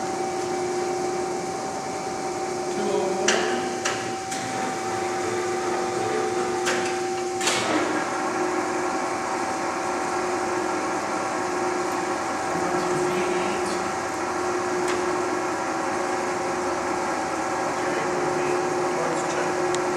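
LeBlond Regal Servo-Shift engine lathe running under power with its spindle turning, a steady gear-head whine. A few sharp knocks come in the first eight seconds, after which the running note changes, as the spindle is shifted to about 204 RPM.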